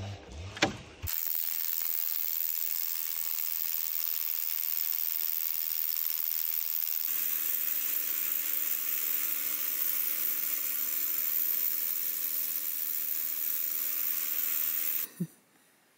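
A steady hiss, joined about halfway through by a steady motor-like drone; both start and cut off abruptly.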